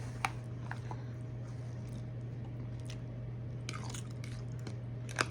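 Close-miked eating sounds: sparse mouth clicks and faint chewing, with a louder click near the end, over a steady low hum.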